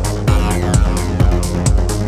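Electronic dance music with a steady kick-drum beat, about two beats a second, under sustained synth notes and falling sweeps.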